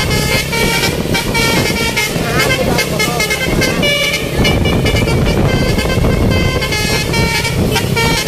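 Telolet Basuri multi-tone bus horn playing a fast melody of short notes that step up and down in pitch, over a steady low rumble.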